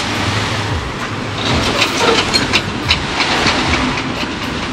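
Fishing boat's engine running, with a steady rush of wind and water and scattered short clicks and knocks.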